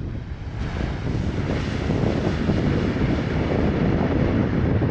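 Jet airliner passing close on landing, its engine and airframe noise swelling over the first two seconds into a loud, steady roar.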